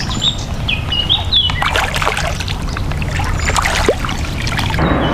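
Water lapping and splashing around a small pontoon fishing boat, with light knocks and a louder splash near the end. Birds chirp during the first second or so.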